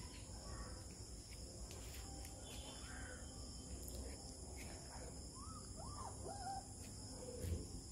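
Faint outdoor ambience: a steady high-pitched insect buzz, with a few short rising-and-falling calls about five to six and a half seconds in.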